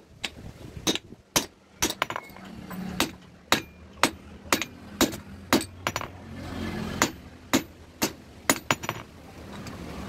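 Hand hammer striking a red-hot iron adze (bashula) blade held in tongs on an anvil block, forging it back into shape. The blows are sharp and come roughly two a second.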